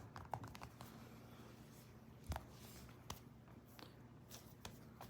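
Faint handling of a squishy slice-of-bread fidget toy: soft squeezing with scattered light clicks and ticks, and a soft thump a little over two seconds in.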